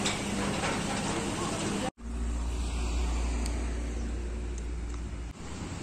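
Outdoor background noise with faint voices for about two seconds, then, after a sudden break, a steady low rumble of wind buffeting a phone's microphone for about three seconds, which cuts off abruptly.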